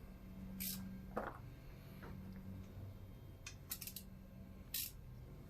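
A few sharp metal clicks from hand tools working on the Raptor 660 engine, sparse and irregular, as the timing-chain tensioner is tightened. A faint low hum stops a little over a second in.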